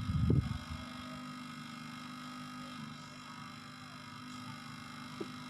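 Steady electrical hum with faint steady higher tones above it, after a brief low, loud rumble in the first half second.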